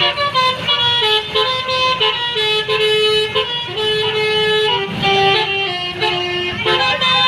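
Basuri telolet horn on a bus playing a tune: loud pitched horn notes stepping from one pitch to another, some held for about a second.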